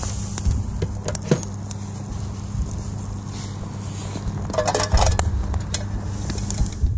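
Stew simmering in a metal mess tin over an open wood fire: scattered small pops and crackles over a steady low hum and a high hiss.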